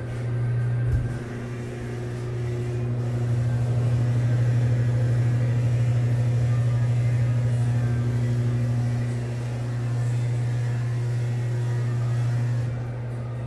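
Greenheck ceiling exhaust fan running with a steady low hum. There is a brief bump about a second in.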